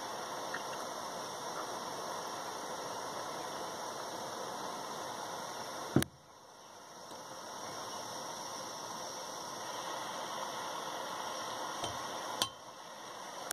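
Soldering torch flame hissing steadily while it heats a brass shower valve and copper pipe joint for soldering, with two sharp knocks about six seconds apart.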